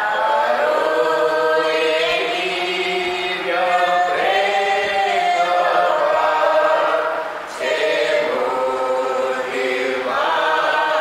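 A small congregation of men and women singing a Gujarati hymn together, with long held notes and a short breath break about seven and a half seconds in.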